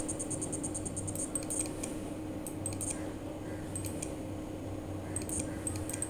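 Faint background: a steady low hum, a high, fast-pulsing trill near the start and again near the end, and a few light clicks.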